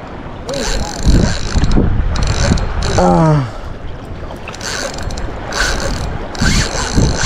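Fishing reel being worked in short bursts, a mechanical ratcheting whir that starts and stops every half second or so.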